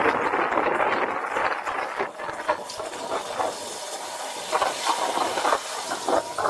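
A steady rushing hiss, dense and mid-pitched at first. About two seconds in it thins to a higher hiss, with a few scattered knocks.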